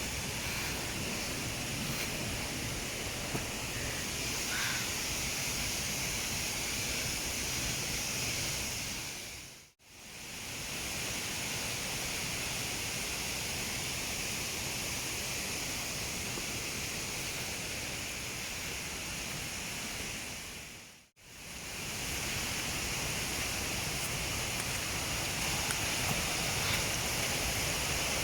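Steady rush of a waterfall's falling water, dropping out briefly twice.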